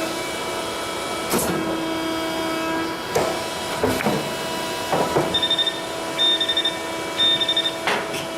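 Sheet-metal production machine for washing-machine outer cabinets running with a steady hum, struck through by several sharp metal clanks. From about five seconds in, three short bursts of rapid high beeping sound about a second apart.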